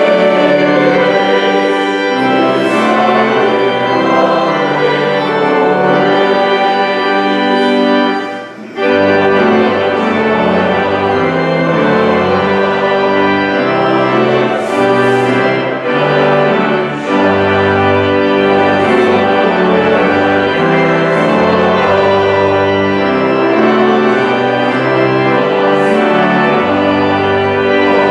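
Church organ playing slow, held chords. There is a brief break about eight and a half seconds in, after which deep pedal bass notes join the chords.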